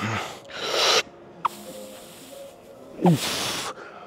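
A man straining through cable curl reps: two hard breaths out in the first second, then a short grunt falling in pitch about three seconds in.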